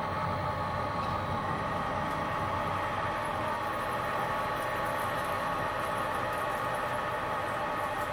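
Little Machine Shop High Torque mini mill, driven by a 900 W brushless servo motor, running steadily at about 500 RPM on the spindle while a twist drill bores into a solid block of 6061 aluminum: an even mechanical hum with a few steady whining tones.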